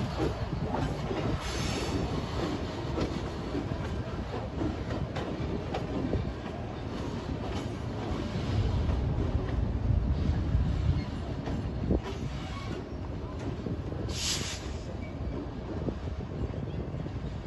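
Freight train cars rolling past on the track: a steady rumble with scattered sharp clicks from the wheels, and a short high-pitched burst near the end.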